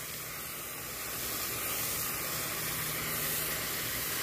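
Lake fountain's tall jet of water spraying and falling back onto the water, a steady hiss, with a faint low hum underneath.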